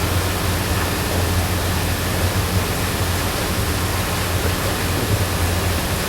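Steady hiss with a low hum underneath, unbroken and without any distinct event.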